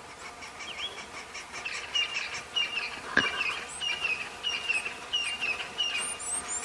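A bird calling over and over, a short chirp repeated roughly every half second, with one sharp click about three seconds in.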